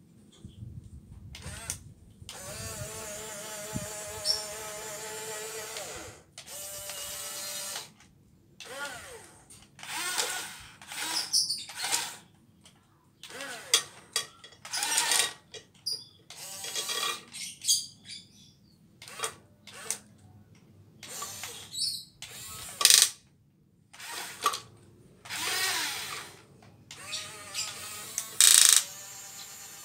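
Radio-controlled model excavator's small electric motors and gearboxes whirring in repeated start-stop bursts of one to a few seconds, the whine shifting in pitch as it drives its tracks and works its arm to climb a concrete step.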